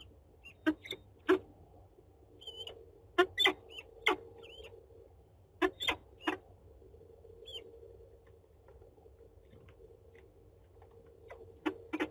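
Peregrine falcon moving on its eggs in a nest box: irregular sharp scratches and taps, mixed with a few short high chirps, over a steady faint hum.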